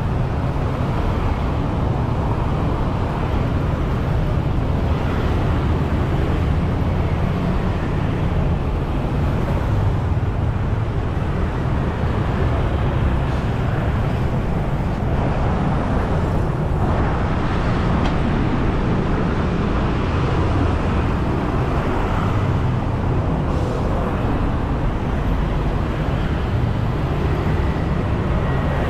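Steady road traffic noise, an even hum with no single vehicle standing out.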